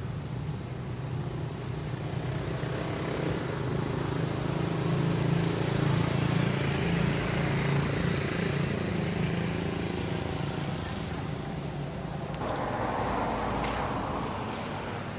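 A motor engine humming steadily, swelling toward the middle and then easing off.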